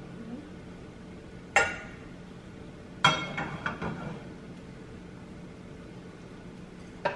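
Kitchenware clinks and knocks as a frying pan is handled on the stove and chopsticks work between the rice bowl and the pan: one sharp knock about one and a half seconds in, a quick run of clinks around three to four seconds, and another near the end, over a faint steady hum.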